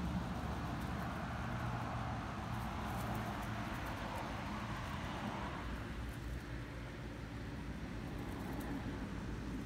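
Steady outdoor background noise, a rushing hum that swells and then eases off about six seconds in, with a few faint small clicks.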